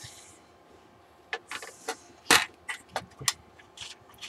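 A string of sharp clicks and knocks from hand tools and metal parts being handled, about ten in all, starting about a second and a half in, with the loudest knock a little past two seconds.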